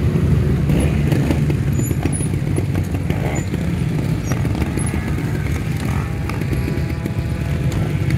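Trials motorcycle engine running steadily as the bike is ridden over the rock section.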